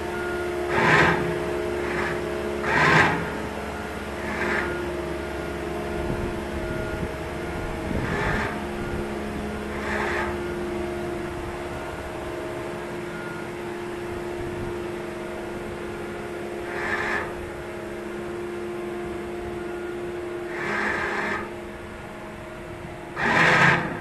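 Motor yacht's inboard engine running steadily with a droning hum. Short rushing surges break in every few seconds, the loudest just before the end.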